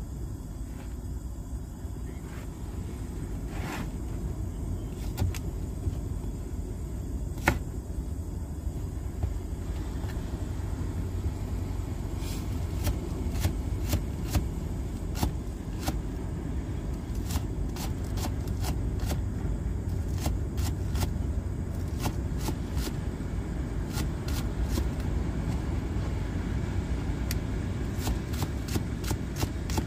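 Kitchen knife chopping green onions on a plastic cutting board: a few scattered knocks at first, then quick, irregular taps of the blade on the board from about twelve seconds in. A steady low rumble runs underneath.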